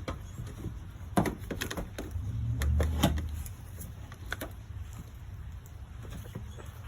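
Plastic bumper cover being pried at with a screwdriver to release its clips: about half a dozen scattered clicks and knocks of plastic and metal tool, with a low rumble of handling in the middle.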